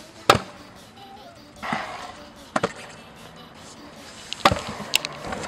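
A stunt scooter hitting concrete during skatepark tricks: four sharp clacks of landings and impacts, one just after the start, one a little over halfway and two close together near the end.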